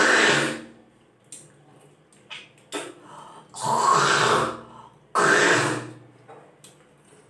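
A woman hawking loudly from her throat with harsh retching, vomiting-like noises: three outbursts of about a second each, one at the start and two close together past the middle, with short spitting sounds between.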